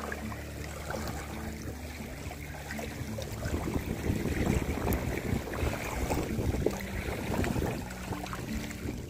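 Small wind-driven waves lapping and washing over a pebble and stone shore, with wind on the microphone; the water grows louder about four seconds in.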